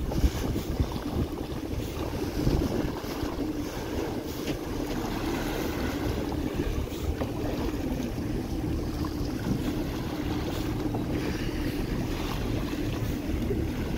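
Water rushing and splashing along the hull of a moving boat as its bow cuts through the sea, over a steady low engine drone, with wind buffeting the microphone.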